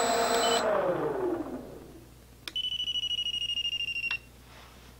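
Four brushless outrunner motors with propellers on a model airplane winding down from idle to a stop as the throttle is pulled back, their whine falling in pitch and fading over about a second. Then a click and a high electronic beep lasting about a second and a half, ending with another click.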